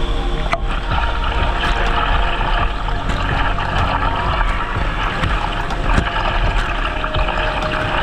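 Waterfall pouring down onto a bather in its plunge pool: a loud, steady rush of crashing, splashing water right at the microphone.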